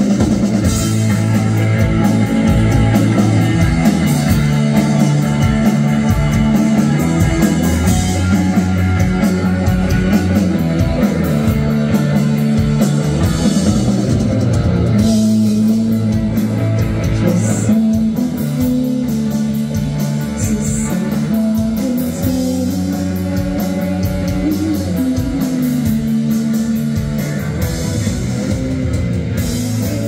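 A live rock band playing a song on electric guitars, bass guitar and drum kit.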